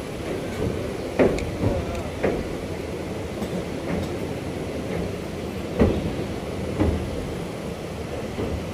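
Train running, heard from aboard a carriage at an open door or window: a steady rumble with a handful of sharp, irregular knocks and clanks from the wheels and carriage.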